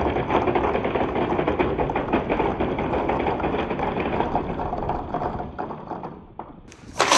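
Dozens of balls rolling down a wooden pegboard slope, with a dense rattling clatter as they knock against the board and each other and pile up. The clatter dies away about six seconds in as the balls come to rest, and a short loud noise begins right at the end.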